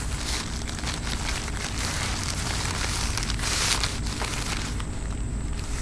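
Brown kraft paper wrapping crinkling as it is pulled open off a fishing rod blank, coming in uneven surges with the loudest about three and a half seconds in, over a steady low rumble.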